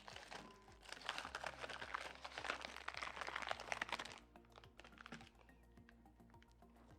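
Sticky clicking and crackling of butter slime being squeezed and mixed with soft clay by hand. The clicks are dense for about three seconds, then thin out and fade.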